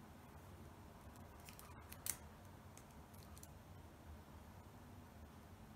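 Faint metallic ticks and scrapes of a homemade windshield-wiper pick and tension tool working the pins in a cheap padlock's keyway, with one sharper click about two seconds in.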